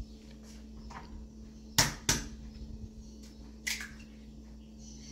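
Eggs being tapped against a bowl to crack them into pão de queijo dough: a few sharp knocks, two close together about two seconds in and a lighter one near four seconds.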